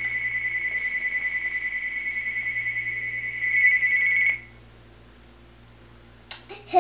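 Electronic telephone-style trill: one high-pitched beeping tone, pulsing rapidly and evenly, that rings for about four seconds and cuts off abruptly, followed by a few faint light taps.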